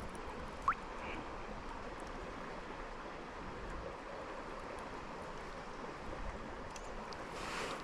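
Small creek running, a steady even rush of water, with one short rising chirp just under a second in.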